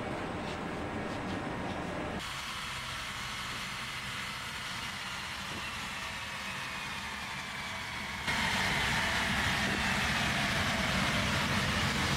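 BMW 7 Series running on a rolling-road test stand during an end-of-line roller test, its wheels spinning on the rollers: a steady rush of tyre and roller noise with a faint whine that slowly falls in pitch. The sound steps up suddenly and gets clearly louder about eight seconds in.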